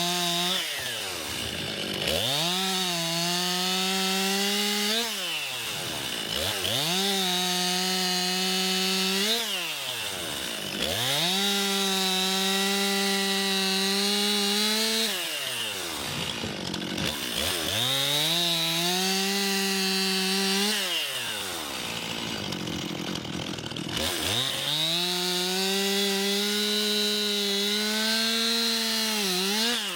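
Stihl MS 261 two-stroke chainsaw bucking logs into firewood. It revs up, holds a steady high pitch through each cut for three to four seconds, then drops back toward idle, about five cuts in a row.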